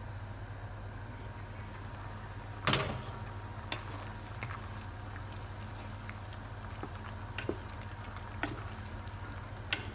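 Pasta water boiling in a pot, with one loud clank about three seconds in as the glass lid comes off, then a wooden spoon stirring the pasta and knocking lightly against the pot now and then.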